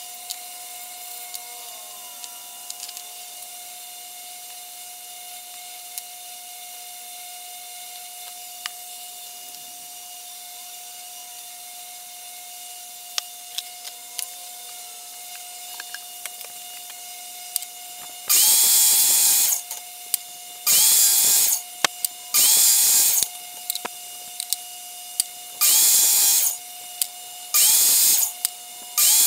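Bosch 10-inch compact miter saw run in six short bursts of about a second each while cutting an acrylic pen blank. Each burst begins with the motor's rising whine and stops sharply. They start about two-thirds of the way in; before that there is only a faint steady hum and a few small clicks.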